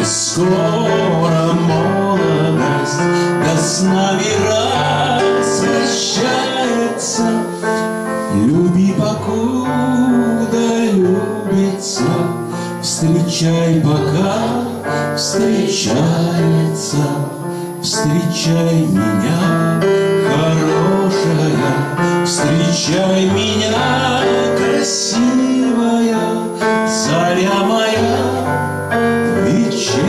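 Live music from a Yamaha electronic keyboard: chords and a melody over a steady drum beat.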